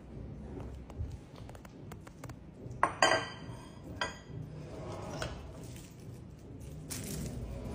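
Ceramic dishes being set down on a hard countertop, clinking and knocking several times, the loudest clatter about three seconds in.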